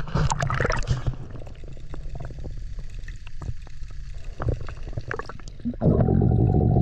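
A camera plunges under the surface with a splash, then muffled underwater sound with scattered clicks and crackles. About six seconds in there is a loud rush of bubbling water close to the camera.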